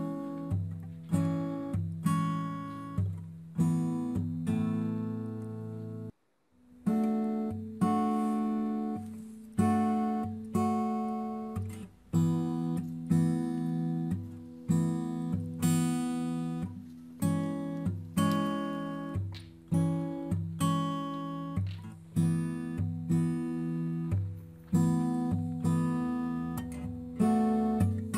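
Background acoustic guitar music: plucked chords struck about once a second, with a brief break about six seconds in.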